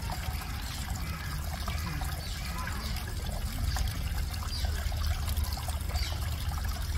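Steady trickle of running water with faint voices in the background and a few short, faint high chirps.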